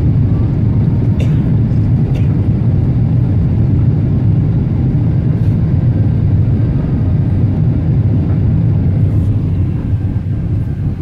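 Jet airliner cabin noise on approach to landing: a steady low roar of the engines and rushing air.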